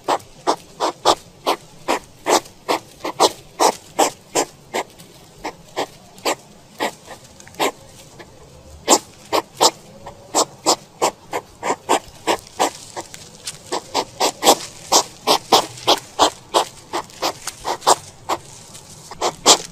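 European hedgehog snuffling as it forages, a run of short quick sniffs at about two or three a second, uneven in spacing.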